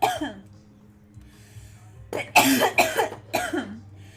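A woman coughing in a fit after a first hit of cannabis. A cough fades out right at the start, there is a short breath in, then about two seconds in come three coughs in quick succession.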